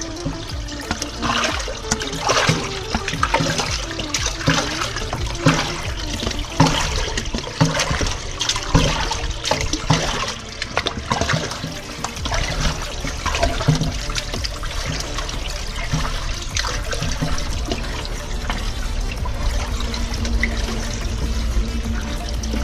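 Wastewater gushing and splashing into a drain pit around a PVC pipe. It splashes unevenly through the first half, then settles into a steadier rush.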